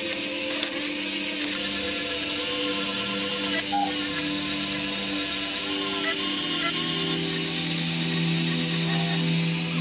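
Dremel rotary tool spinning a small wheel against the steel joint of a pair of pliers, a steady high-pitched whine. The pitch steps up about a second and a half in and again near the end as the load on the wheel changes.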